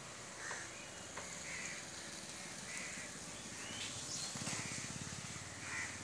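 Crows cawing in short calls about once a second over a steady hiss, with a low buzz coming in for about a second past the middle.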